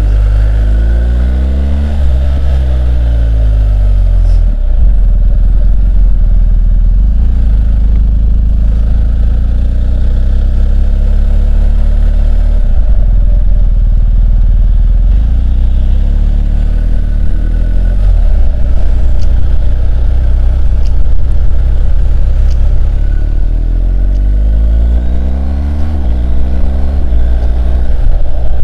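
BMW R1250 GS Adventure's boxer-twin engine on the move under a heavy, steady wind rumble on the microphone. The engine's pitch swings down and back up near the start and again near the end as the bike slows and pulls away through the gears.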